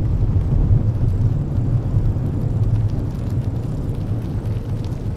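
Steady low rumble of wind on the microphone, mixed with the distant drone of a radio-controlled Dewoitine D.26 scale model airplane flying overhead.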